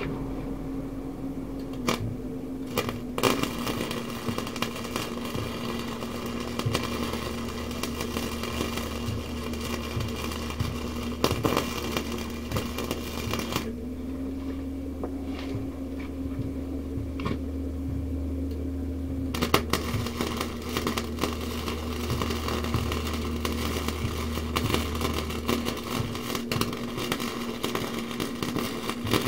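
Electric arc welding on metal bumper pieces: the arc crackles steadily in two long runs, starting about two seconds in and breaking off for several seconds near the middle before striking again, over a steady hum.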